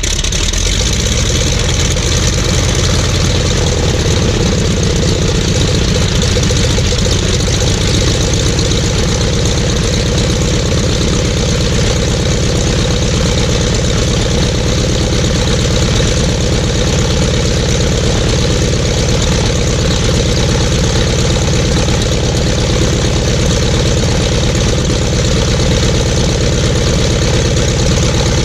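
Jacobs R-755-B2 seven-cylinder radial engine of a Cessna 195 idling steadily, having just caught on start-up.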